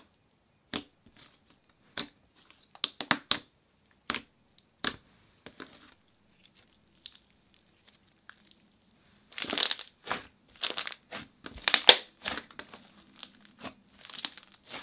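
Cloudy jelly slime worked by hand, poked, stretched and squeezed: scattered sharp pops and clicks, then a denser run of crackling squelches from about nine to twelve seconds in.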